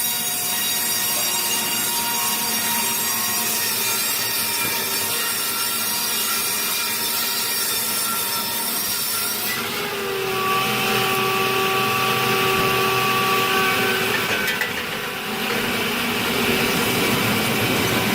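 Sawmill saws cutting through large logs, a continuous whining saw with steady tones; the sound changes abruptly about halfway through to a different saw.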